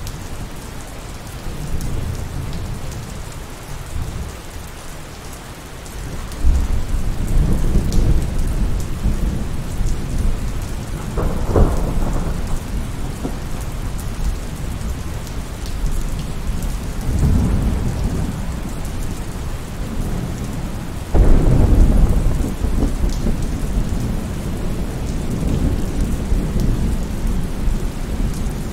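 Steady heavy rain with thunder rolling through. A loud rumble breaks in about six seconds in, a sharper crack comes near the middle, and another sudden loud clap about three quarters of the way through.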